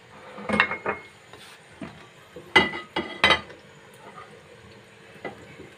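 Dishes and utensils being handled on a countertop: a few separate clinks and knocks, the two loudest close together in the middle, with a faint ringing after them.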